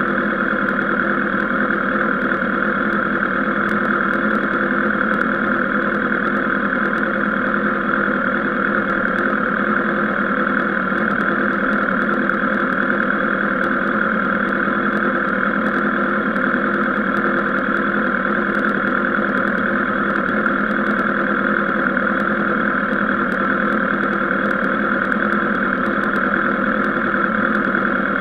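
Sport motorcycle engine idling steadily while the bike stands still.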